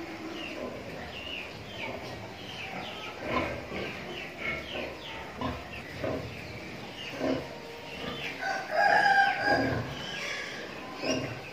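A rooster crows once, the loudest sound, about nine seconds in, over a farmyard background of short, high chirping calls and a few brief lower calls.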